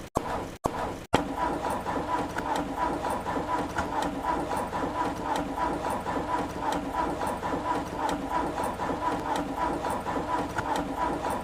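Car engine being cranked by its starter motor in a steady rhythm of a few pulses a second, without catching: a stalled engine with wet spark plugs and a weakening battery that will not start.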